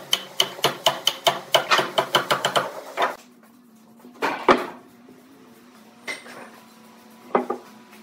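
A steel wood chisel being struck in quick succession, about six sharp, ringing blows a second, as it chops into pine; the blows stop about three seconds in. After that come a few single wooden knocks as heavy pine pieces are set down on a wooden workbench.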